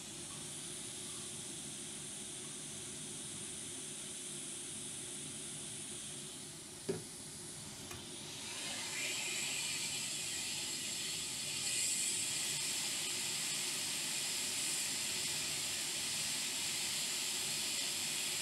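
Hot air rework station blowing a steady hiss of hot air onto a MOSFET to reflow its solder onto a laptop motherboard. The hiss grows louder and brighter about eight and a half seconds in. A single sharp click comes shortly before that.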